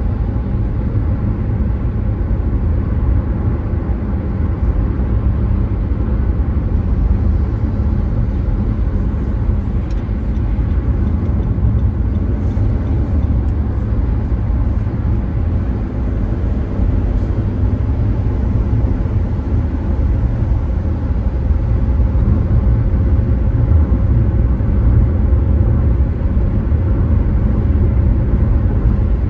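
Steady low rumble of a car driving on the road, tyre and engine noise as heard from inside the car.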